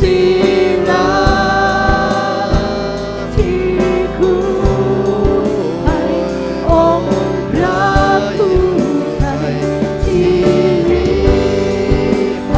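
Live worship band playing a slow praise song: several singers singing together over guitars, drums and keyboard, with long held notes.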